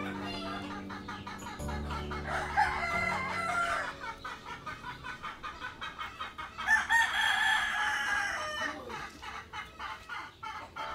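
A rooster crowing twice: one long crow about two seconds in and another about seven seconds in.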